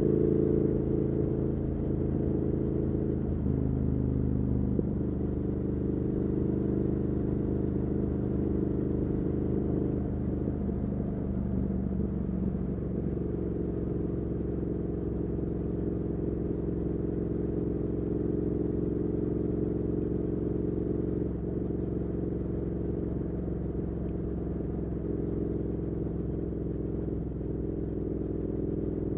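2019 Triumph Speed Twin's 1200 cc parallel-twin engine running on the move through a Weslake Shorty Pro exhaust. Its note changes pitch a few times in the first dozen seconds, then holds steady.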